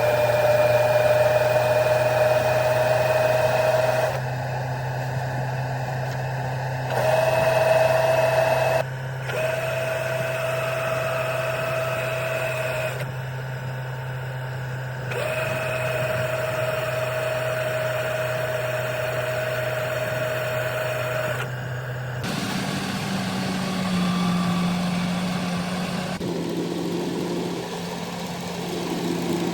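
Rice combine harvester running: a steady engine hum under a high, even whine that cuts out and comes back several times. About three-quarters of the way through, the engine note jumps to a higher pitch.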